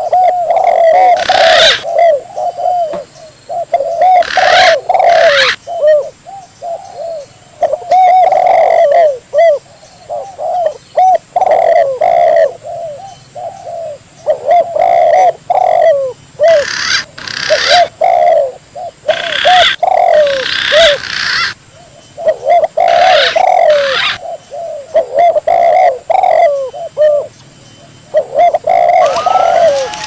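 Spotted dove and green pigeon calling back and forth: quick runs of short cooing notes repeat again and again, with higher, brighter calls breaking in every few seconds.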